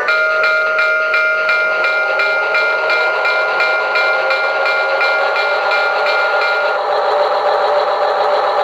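Recorded diesel locomotive sounds from a QSI Maxx Traxx model-train sound unit: the locomotive bell rings steadily, about three strikes a second, over the diesel engine running and building up as the train pulls out. The bell stops about seven seconds in.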